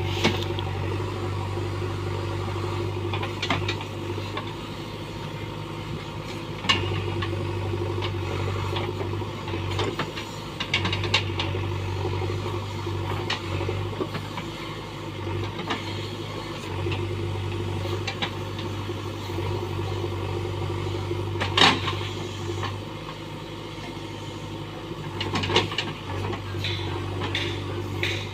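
Diesel engine of a JCB backhoe loader running with a steady drone, its low hum easing and returning several times, and scattered sharp metal clanks and knocks, the loudest about three-quarters of the way through.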